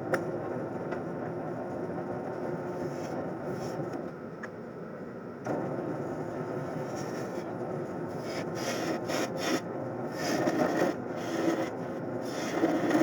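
Wood lathe spinning a mahogany blank while a turning tool cuts it: a steady rushing scrape over a faint motor hum. The cut eases off about four seconds in, picks up again at five and a half seconds, and grows louder and choppier in the second half.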